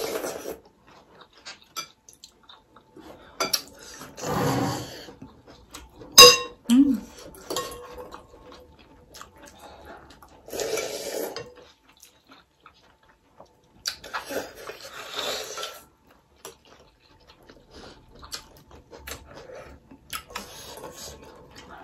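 Forks and spoons clicking and scraping against glass bowls of noodle soup, with one sharp ringing clink about six seconds in. Long slurps of noodles and broth come every few seconds.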